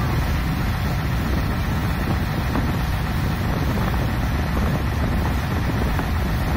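Thames Clipper catamaran under way: a steady low engine drone with rushing water and wind noise.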